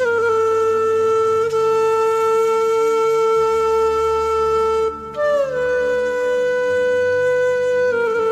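Background music: a wind instrument playing long held notes with slow downward bends, over a low steady drone. One note breaks off about five seconds in and the next begins higher and slides down.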